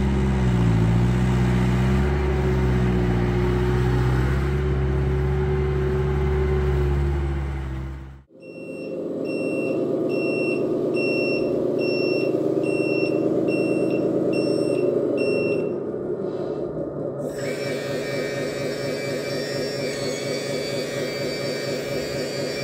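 1:14 scale RC skid steer's engine sound revving and dropping as its bucket tips gravel; about 8 seconds in it gives way to an RC dump truck's engine idle with a reversing beeper sounding about twice a second while the truck backs up. Near the end the beeping stops and a steady hydraulic whine sets in as the tipper body starts to rise.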